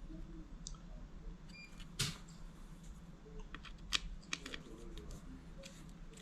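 Scattered small clicks and taps of a plastic smoke alarm base and connector block being handled and screwed tight with a screwdriver, with one louder knock about two seconds in and a cluster of sharp clicks around four seconds, over a steady low hum.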